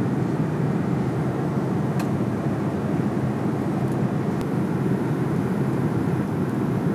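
Airliner cabin noise in cruise flight: a steady rumble of jet engines and airflow heard from inside the cabin, with a faint click about two seconds in.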